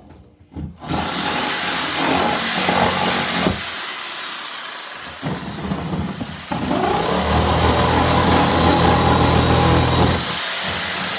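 Power tool cutting the opening for a power outlet. It starts about a second in with a high whine and gets louder for a few seconds in the second half.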